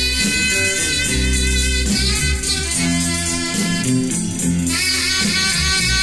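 Instrumental break of a 1959 45 rpm pop single, without vocals: guitar over bass and drum kit.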